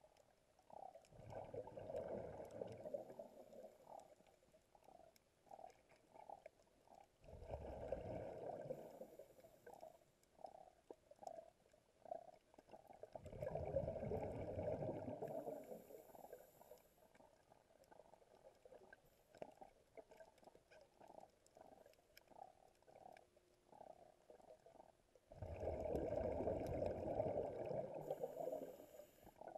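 Scuba diver's regulator heard underwater: four long, muffled bursts of bubbling exhaled air, with softer bubble pops and gurgles between the breaths.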